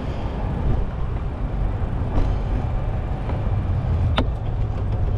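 Low, steady rumble of city street noise heard from a moving bicycle, with two short sharp clicks about two and four seconds in.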